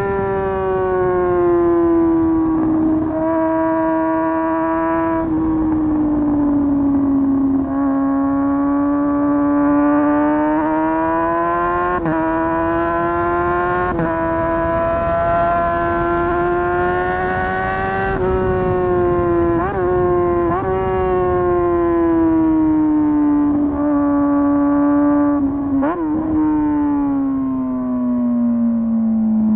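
Motorcycle engine running at high revs while riding, its pitch slowly rising and falling, with several brief sharp dips along the way.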